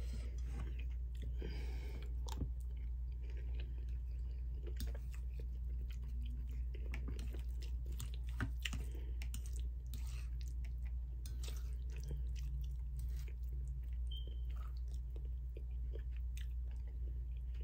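A person chewing mouthfuls of beef and broccoli, with scattered small wet clicks of eating, over a steady low hum.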